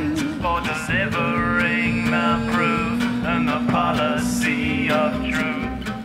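Gypsy jazz band playing: acoustic guitars strummed in a steady even rhythm with plucked upright bass, under a violin melody of long held notes with vibrato.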